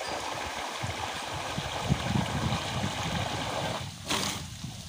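A strong jet of water gushing from a thick hose into a concrete tank full of water, a steady churning splash. About four seconds in the jet is lifted out over the tank's edge and the splashing thins and drops.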